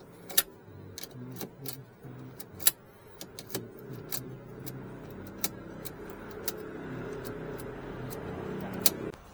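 Keys and small metal parts clicking as they are handled, over a steady hum that grows louder in the second half and cuts off suddenly near the end.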